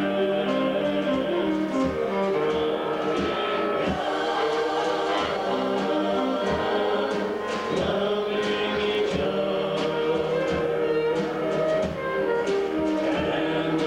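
Gospel vocal group singing in harmony, with instrumental accompaniment.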